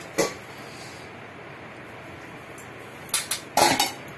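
Steady faint kitchen hiss with a short click early on. A few sharp clicks and knocks follow about three seconds in, from utensils handled as garam masala is added to the cooked dal in a metal pot.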